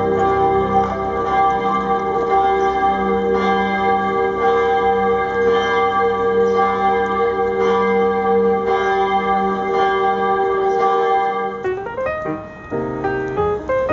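Several church bells ringing together, their tones held and overlapping. About twelve seconds in they give way to piano music.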